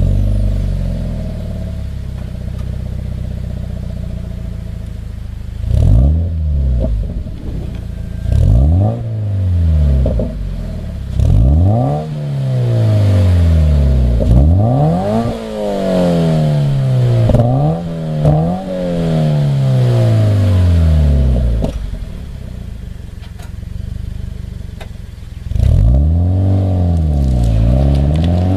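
Subaru BRZ's FA20 flat-four engine through an HKS Super Exhaust System with a Hi-Power Spec-L muffler on the stock manifold and catalyst. It settles from a start-up flare into a steady idle, is blipped three times, then revved repeatedly up and down for about ten seconds, drops back to idle, and accelerates away near the end.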